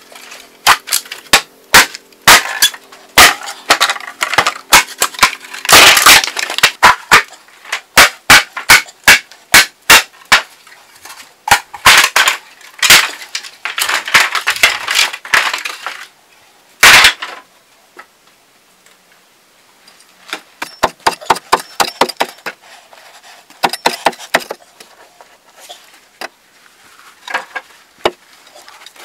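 Long-handled machete chopping and splitting green bamboo: many sharp blows and cracks in quick, uneven succession. After a short pause they give way to lighter, scattered knocks of bamboo poles and hand digging in earth.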